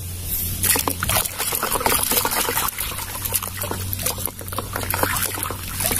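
Water splashing and sloshing in a basin as hands scrub a mud-caked plastic toy rifle under the surface.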